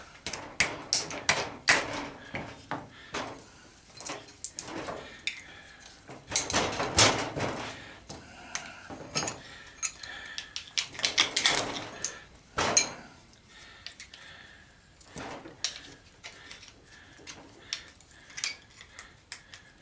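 Hand tools working on the steel case of an old golf cart battery charger: a hammer taps a screwdriver several times in the first two seconds, then a screwdriver clicks and scrapes against the metal as stuck screws are worked loose, with a few louder stretches of scraping.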